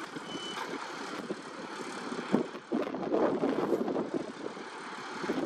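Long-boom excavator's engine and hydraulics running as it handles a steel sheet pile, with a few short knocks.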